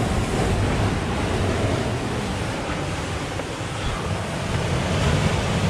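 Surf breaking and washing against a rocky sea cliff, a steady rushing noise, with wind buffeting the microphone.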